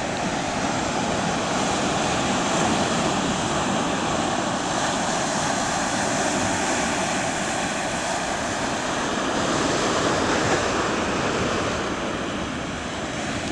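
Steady rushing of breaking surf on a beach, with wind buffeting the microphone.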